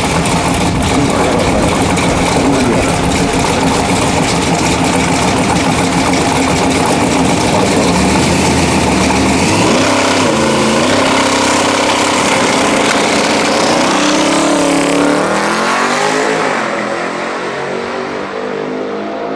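Twin-turbo LS V8 of a drag-racing Mk1 VW Passat running loud at the start line, then launching about ten seconds in: the engine note climbs in steps through the gears and fades as the car pulls away down the strip.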